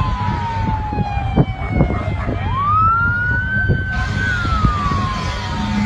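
An emergency vehicle's siren wailing in slow sweeps. Its pitch falls, climbs quickly about two seconds in, holds high for a moment, then slowly falls again. Underneath is a steady low rumble with a few short knocks.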